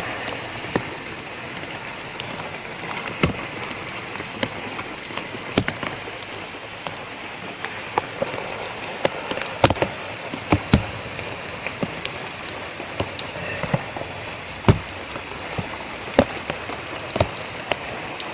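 Steady tropical-storm rain falling, a constant hiss with irregular sharp taps scattered through it.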